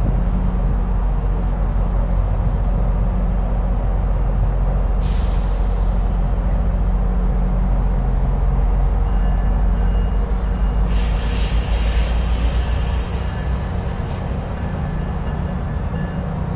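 GO Transit bilevel commuter train at the platform with a steady low rumble, and air hissing from its brakes, briefly about 5 seconds in and again for about two seconds after the 10-second mark, just before the train starts to move off.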